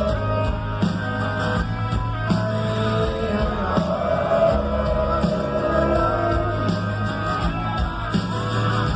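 Rock music with a singing voice over bass and drums.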